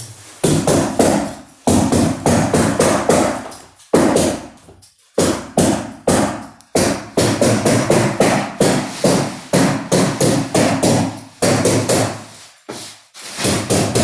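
Hammer stapler driving staples through carpet pad into the floor: quick runs of sharp strikes, several a second, with short breaks between runs.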